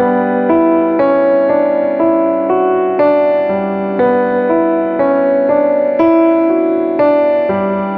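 Background music: an electric piano playing a steady run of notes, about two a second.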